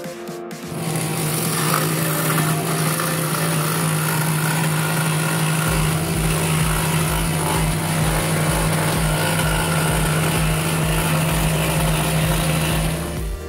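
Electric scroll saw running and cutting a thin wooden blank: a steady motor hum under the rasp of the reciprocating blade. It starts about a second in and stops just before the end.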